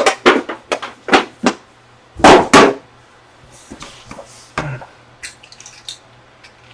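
A quick run of sharp knocks and taps on a tabletop, then one louder burst a little over two seconds in, then a few faint ticks: trading cards and packs being handled.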